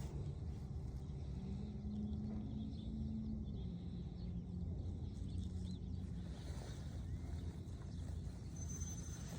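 Steady low outdoor rumble with a faint droning hum that holds for a couple of seconds, then sits a little lower; no distinct event stands out.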